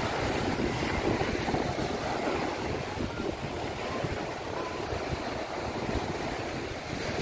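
Wind buffeting the microphone over the steady wash of small waves breaking on a sandy beach.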